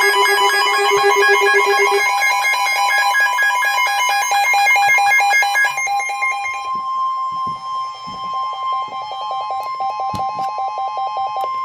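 Emergency alert weather radio alarms sounding: layered, rapidly pulsing electronic beeps at several pitches. About six seconds in, a steady tone just above 1 kHz comes in under the beeping, typical of the NOAA Weather Radio 1050 Hz warning alarm tone. It all cuts off abruptly at the end, just before the spoken warning.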